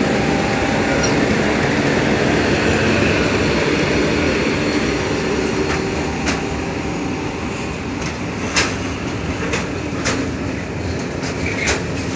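A train rolling past with a steady rumble. From about halfway through, its wheels click sharply and irregularly over the rail joints.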